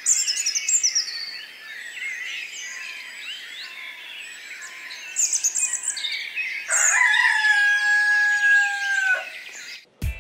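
Small birds chirping and twittering throughout. About seven seconds in, a rooster crows: one long held call of about two and a half seconds that drops in pitch at the end.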